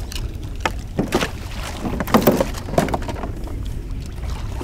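Irregular splashes and sloshing in shallow water, loudest about two seconds in, as duck decoys are set out in the shallows, over a steady low wind rumble on the microphone.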